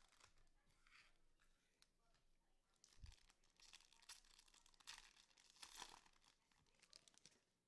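Faint crinkling and tearing of trading-card pack wrappers being ripped open by hand, in several short crackly bursts that are densest in the second half.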